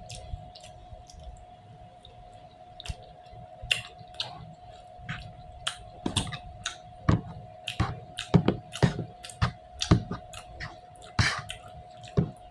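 Close-up chewing of food, with irregular wet mouth clicks and smacks that get quicker and louder from a few seconds in.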